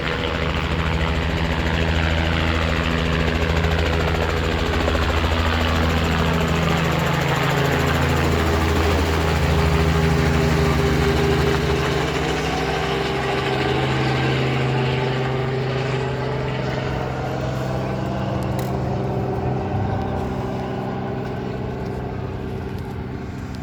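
A vehicle's engine running steadily with a low droning hum, slowly growing quieter toward the end.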